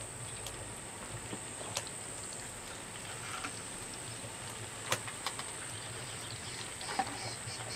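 Meat patties frying in oil in a frying pan, a low steady sizzle, with a few short clicks as more raw patties are set into the pan.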